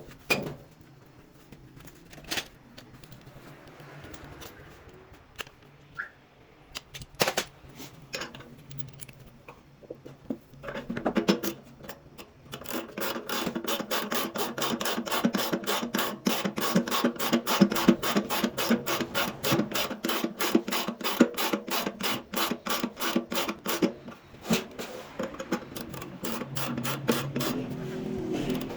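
Scattered clicks and knocks, then from about twelve seconds in a long, even run of ratcheting clicks, about three a second, from a ratcheting tool working a fastener.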